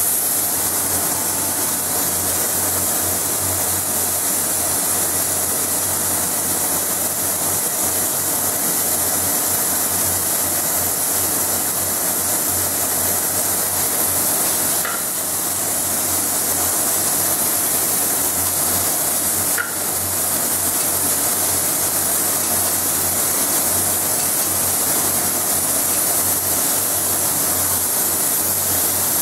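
Spray gun hissing steadily as it sprays mould material onto a steel armour piece, with a low hum beneath. The hiss dips briefly about halfway through, and there is a short click a few seconds later.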